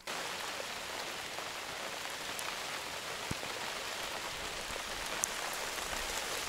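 Steady rain falling: an even hiss with a few louder drop ticks scattered through it.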